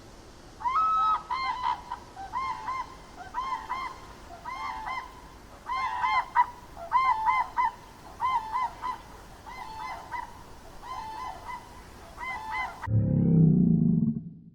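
Geese honking over and over in short calls, often two at a time. Near the end the geese cut off and a loud, low animal call starts abruptly.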